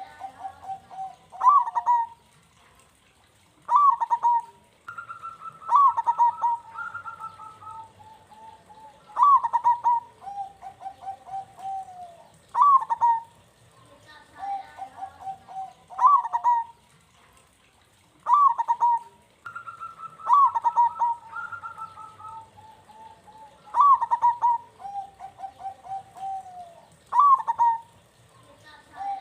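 Zebra dove (perkutut) cooing over and over, a phrase every three to four seconds: each begins with a sharp note and runs into a rolling string of lower coos.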